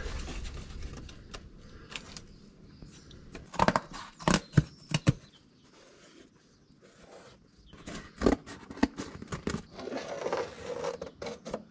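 A cardboard template being handled and scraped against steel plate, with rustling and a few sharp taps and clicks, loudest about four seconds in.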